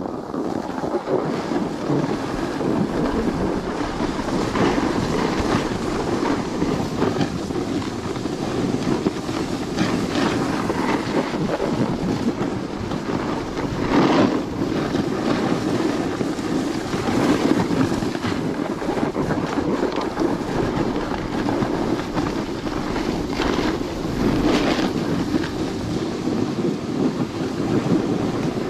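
Continuous scraping hiss of edges sliding over hard-packed groomed snow while riding downhill, with wind on the microphone. Louder scrapes come now and then as the edges bite, the strongest about halfway through.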